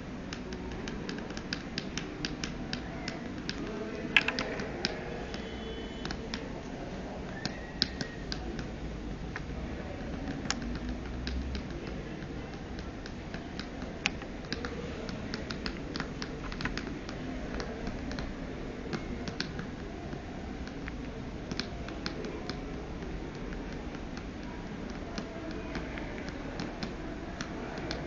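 Irregular clicks of buttons being pressed on a Sony Ericsson mobile phone, scattered throughout over a steady low background noise.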